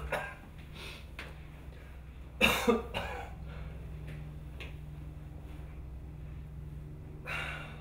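A person coughing, a quick harsh pair of coughs about two and a half seconds in, then a fainter one near the end, over a low steady hum.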